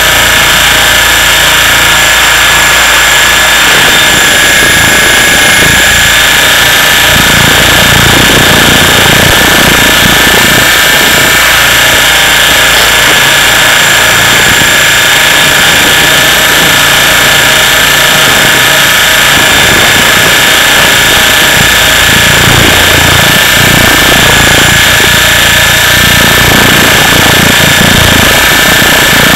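Radio-controlled helicopter's motor and rotor, heard from the camera mounted on the helicopter in flight: a loud, steady high whine over a rougher low rumble that shifts as it flies.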